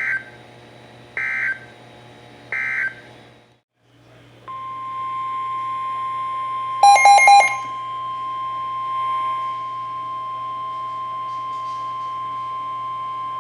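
NOAA Weather Radio alert signals. First come three short squawks of SAME digital data tones, the end-of-message code, then a brief pause. About four and a half seconds in, the steady 1050 Hz warning alarm tone starts and holds, and a louder burst of rapid beeps sounds over it about seven seconds in.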